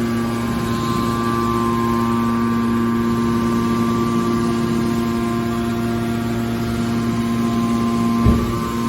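Hydraulic scrap metal baler's power unit running with a steady hum and whine, with a short knock near the end.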